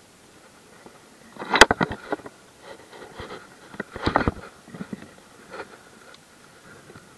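Handling noise close to the microphone: rustling, clicks and knocks of fishing gear being handled, in two busy clusters about 1.5 s and 4 s in, with scattered lighter ticks between.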